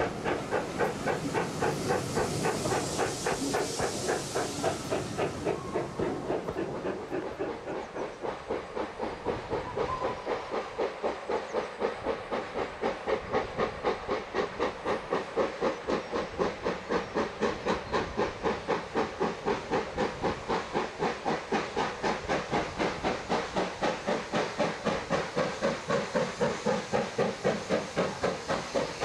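Steam locomotive working hard, its exhaust chuffing in a fast, even beat. A hiss of steam sits over the first few seconds.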